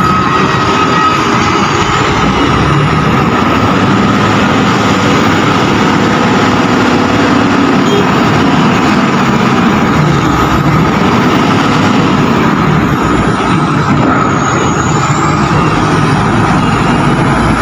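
Diesel engines of heavy container-handling vehicles, a reach stacker and a flatbed truck, running close by. It is a loud, steady drone with a thin, steady whine over it.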